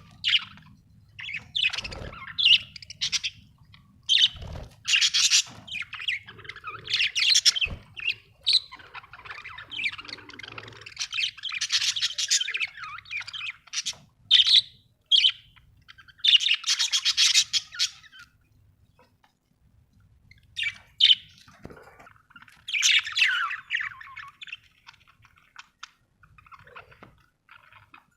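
Budgerigars chirping and chattering in bursts, with some harsher squawks among the warbling calls.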